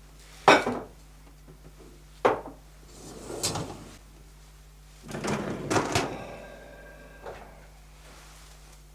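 Dishwasher racks and dishes being handled: a sharp knock about half a second in, another around two seconds in, a short rattle, then a longer sliding clatter a little after five seconds that leaves a brief ringing tone, and one more light knock near the end.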